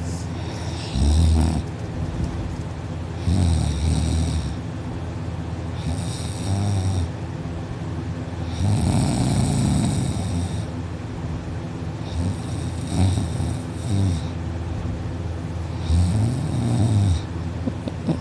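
A sleeping person snoring loudly and heavily: about six snores, one every two to three seconds, each a low rasp with a breathy hiss.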